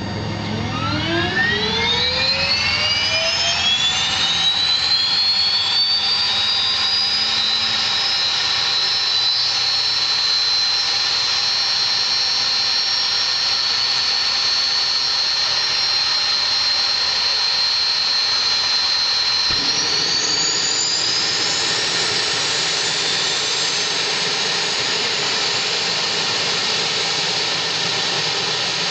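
Pilatus PC-12's Pratt & Whitney PT6A turboprop engine starting up: a whine rising steadily in pitch over the first several seconds as the turbine spools up and the propeller begins to turn, then settling into a steady high whine at idle. About two-thirds of the way through, the pitch climbs again and the sound grows fuller.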